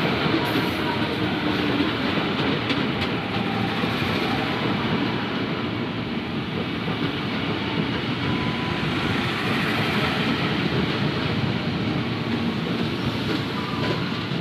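Electric multiple-unit commuter train rolling past along the platform, its wheels and running gear making a steady rumble and clatter as car after car goes by.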